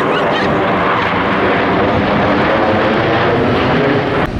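Loud, steady jet noise from Blue Angels F/A-18 jets flying in formation overhead. Near the end it breaks off abruptly into a duller jet sound.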